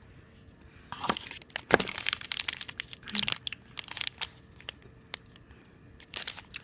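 Plastic candy-bar wrapper crinkling as the wrapped bar is picked up out of a cardboard box and turned over in the hand. The crackling comes in bursts from about a second in, loudest about two seconds in, with a short burst near the end.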